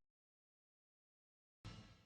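Near silence, broken near the end by a brief, faint noisy sound lasting about a third of a second.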